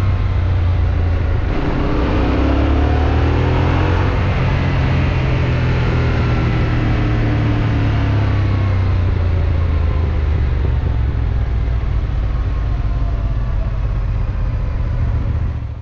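Yamaha Ténéré 700's parallel-twin engine running under way: its note dips about a second and a half in, climbs for a couple of seconds as it revs up, then settles to a steady pace. The sound cuts off suddenly at the end.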